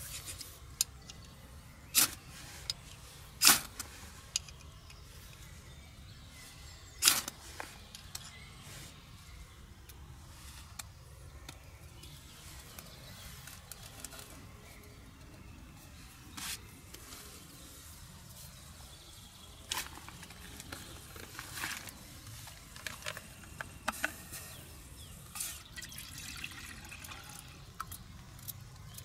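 Metal cup and small folding camp stove being handled, giving short, sharp clinks and knocks every few seconds, the loudest near the start, between quiet stretches.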